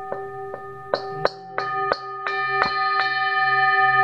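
Metal singing bowl struck with a mallet about nine times in quick, uneven strokes, two to three a second; its ringing tones build and keep ringing after the last strike, about three seconds in.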